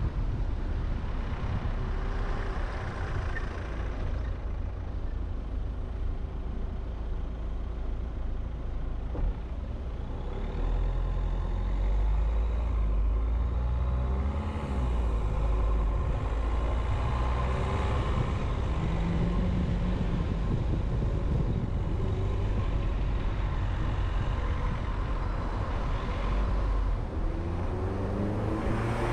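Car driving: engine running over a heavy low road rumble, its note rising and falling as it speeds up and slows, and rising again near the end.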